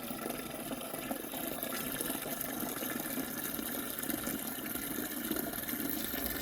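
Steady stream of running water filling a container.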